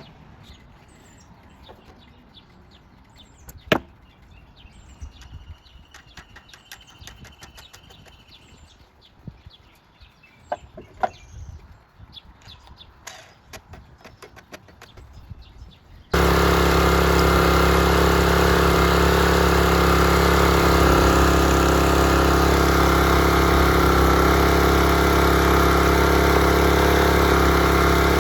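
Pressure washer's small petrol engine running steadily at an even speed. It comes in suddenly a little past halfway and is now running after its carburettor pilot jet was cleaned. Before that there are only a few knocks and clicks.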